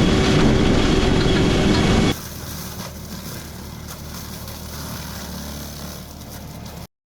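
Skid steer running a Baumalight MS960 brush mulcher: a loud, steady machine drone with a few steady whining tones on top. About two seconds in it cuts to a quieter stretch of the machine running, and near the end the sound stops abruptly.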